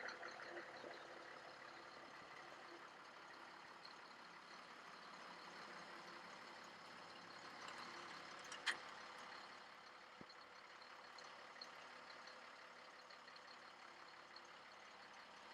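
Faint, steady engine idle hum, with a single sharp click about nine seconds in.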